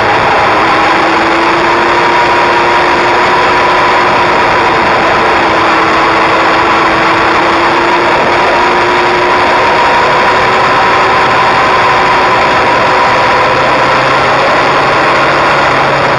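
Kawasaki inline-four sport motorcycle riding at a steady cruise, heard from a camera mounted low by the front wheel: loud, even wind and road rush over a faint engine note that drifts slowly in pitch.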